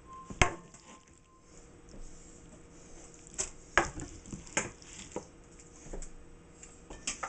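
Metal bowl knocking and clinking against a wooden cutting board as diced raw fish is scraped off the board into it: one sharp knock about half a second in, then a scattered run of lighter clinks and taps.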